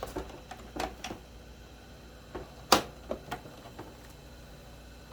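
A few scattered light clicks and taps, one sharper click about two and a half seconds in, over a low steady background, while a vacuum sealer heat-seals a bag of pork.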